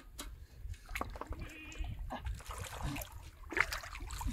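River water sloshing and splashing as a person wades and works a bamboo stick in it, with a few short knocks and splashes.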